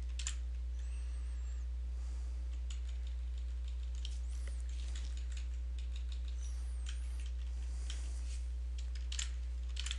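Computer keyboard keys clicking now and then, a few strokes at a time, over a steady low electrical hum that is the loudest thing throughout.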